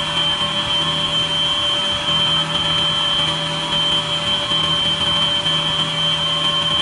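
Wood lathe running steadily with a high whine, while a paper towel is held against the spinning pen blank to burnish in friction polish.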